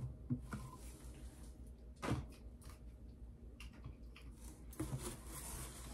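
Quiet handling noise as plastic shampoo bottles are put away in a storage bin: one knock about two seconds in, with a few light clicks and rustles around it.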